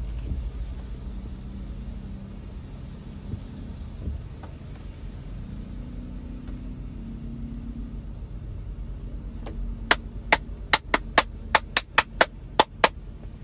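A low background rumble, then about a dozen sharp clicks in quick, slightly uneven succession near the end, about three or four a second.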